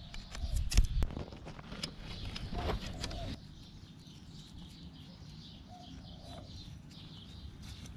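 Tent pole and nylon tent fabric being handled as the tent's clips are hooked onto the pole: a few clicks and knocks with rustling in the first three seconds, then quieter handling. Faint bird calls can be heard about six seconds in.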